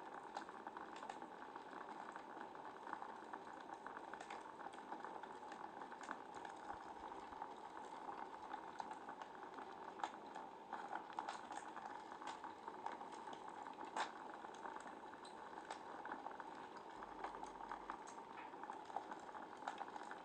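Wood fire crackling in a fireplace: a steady hiss dotted with many small crackles, with a couple of sharper pops about ten and fourteen seconds in.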